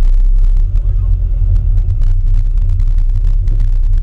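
Classic Mini's A-series four-cylinder engine running at low revs as the car rolls slowly, a steady low rumble.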